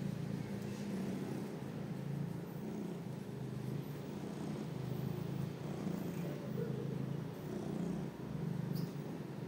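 Domestic cat purring steadily, a low purr that swells and eases every second or two.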